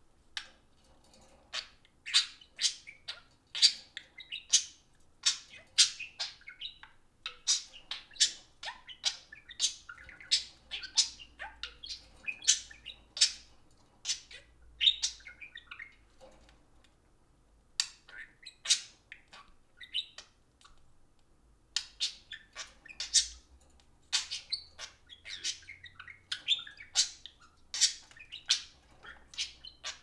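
Pet budgerigars chattering: runs of rapid, high chirps and warbles, broken by a pause of a few seconds a little past the middle.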